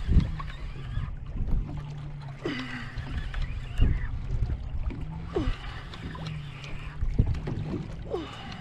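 Water sloshing against a boat's hull and wind on the microphone, with irregular knocks and a low hum through the middle stretch.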